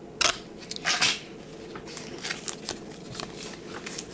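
Foil Pokémon card booster packs and plastic blister packaging being handled. There are two louder crinkles in the first second, then lighter rustling and crackling.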